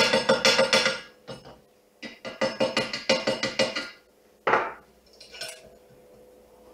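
Hand wire brush scrubbing a freshly welded metal plate in quick, rhythmic strokes that ring metallically, in two runs. A single louder knock comes about four and a half seconds in.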